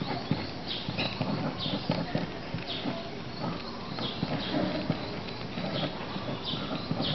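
Felt-tip marker strokes scratching on paper, repeating every half second or so, with irregular light knocks and handling noise underneath.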